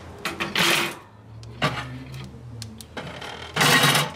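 Steel cooking grate being set down onto a Kamado Joe ceramic grill, clattering against the metal rack beneath: a clatter near the start, a single sharp click midway, and a louder rattle near the end.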